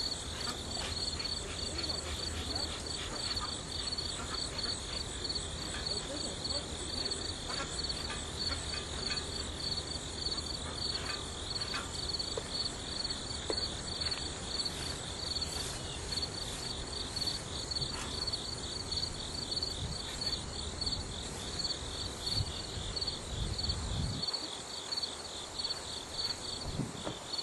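A steady chorus of singing insects: high-pitched, rapidly pulsing calls that run on without a break. A low rumble underneath drops away about 24 seconds in.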